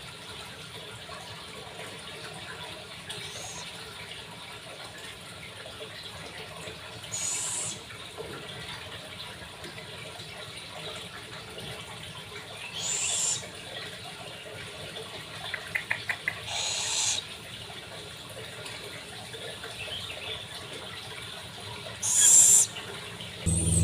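Pet scops owl at feeding time giving short, high-pitched hissing screeches, about five of them spaced several seconds apart, the loudest near the end. A quick run of clicks comes about halfway through.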